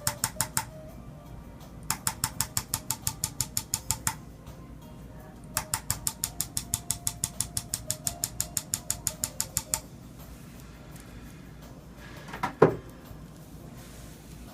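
A handheld electric chiropractic adjusting instrument tapping on a patient's back. It fires in three runs of rapid clicks, about six or seven a second, on its lower-frequency setting for the thoracic spine. A single loud knock follows near the end.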